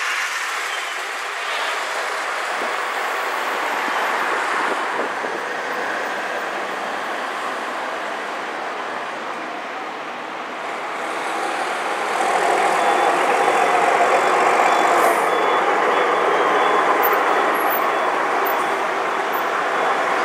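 Vintage Bristol VR double-decker buses driving past on the road, their diesel engines running with tyre and road noise. The sound grows louder about halfway through as a bus comes closer and pulls away.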